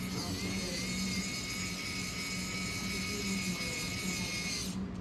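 A steady high-pitched electrical whine, several tones held together over a low hum, that cuts off suddenly near the end.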